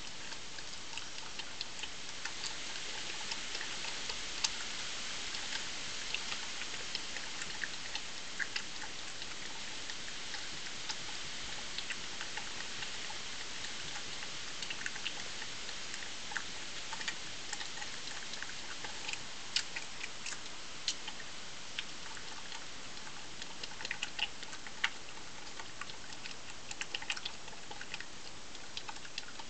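A European badger chewing and crunching food, heard as irregular crisp clicks over a steady hiss.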